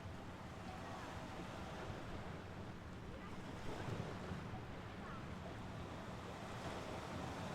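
Mediterranean sea waves washing onto the shore in a steady rush, swelling slightly as a wave comes in about four seconds in.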